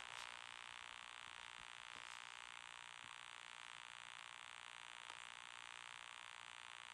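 Near silence: faint steady hiss, between stretches of music.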